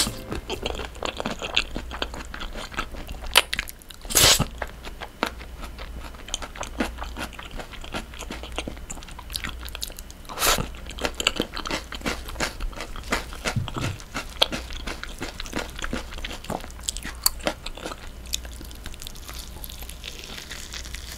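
Close-miked eating sounds: chewing mouthfuls of cream pasta with onion and green chilli, a run of small clicks with a few louder mouth sounds now and then. Near the end a bite into a slab of air-fried pork belly.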